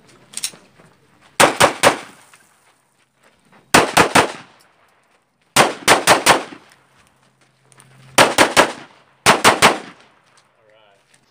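Glock 17 9mm pistol firing 115-grain ammunition in rapid strings: five quick bursts of three or four shots each, with short pauses of one to two seconds between bursts.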